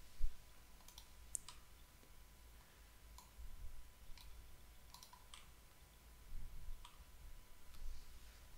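Faint computer mouse button clicks, single and in quick pairs, spaced a second or so apart, over a faint low hum.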